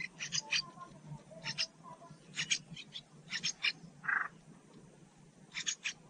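American robin nestlings begging: short, high calls in quick clusters of two or three, repeated about once a second.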